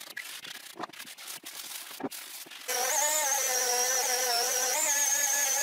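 Sanding block rubbed by hand over a wooden chair part in short, uneven scrapes. About two and a half seconds in, a random orbital sander comes in abruptly on the wood and runs steadily with a high whine, the loudest sound.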